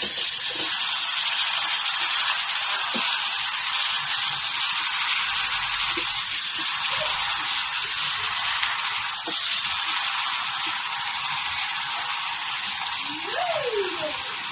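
Pork belly cubes sizzling steadily in a hot non-stick pan as they start to fry.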